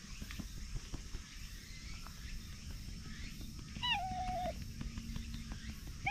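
A domestic cat meows once about four seconds in, a short call that dips and then holds level. A second meow begins right at the end.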